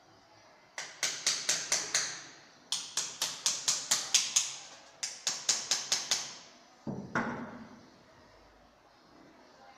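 Small hammer tapping along the trim strip at the foot of a wall, in three quick runs of blows at about five a second, then a couple of duller knocks near the end.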